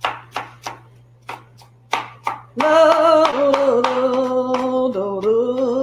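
A knife chopping an onion on a cutting board, a run of quick strikes about three a second. About two and a half seconds in, a woman starts singing a few long, wavering notes, which carry on to the end.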